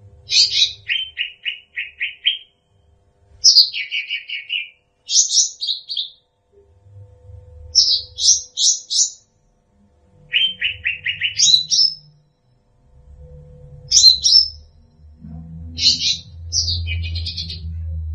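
Cucak rante singing: short phrases of fast repeated chirps and quick trills, a new phrase every second or two. A low rumble sits under the song in the last few seconds.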